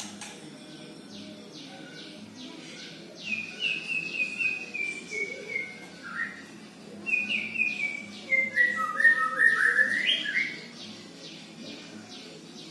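White-rumped shama (murai batu) practising its song: two runs of rapid chirps, each stepping down in pitch, a few seconds apart.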